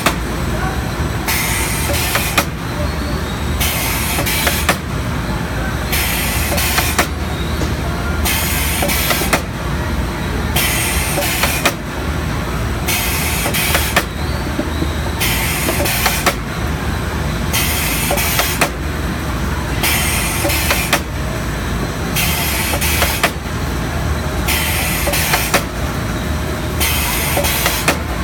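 STEEN ST 828 chicken drumstick deboning machine running steadily with a low hum, a high hiss that comes and goes about every second and a half as it cycles, and scattered sharp clicks.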